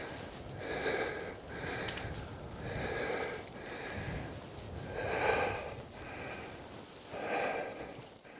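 A person breathing hard, with a heavy breath about once a second.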